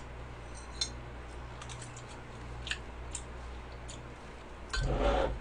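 Faint, scattered light clicks of a metal fork against a small porcelain plate, then a brief, louder muffled rustle near the end.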